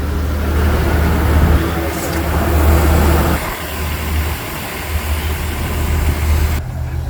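Irish Rail 2600 Class diesel railcar engines running with a steady low hum while the train stands at the platform. The hiss above the hum cuts off abruptly near the end.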